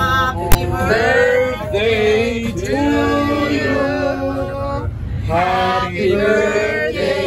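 Male and female voices singing with music, with a single sharp click about half a second in.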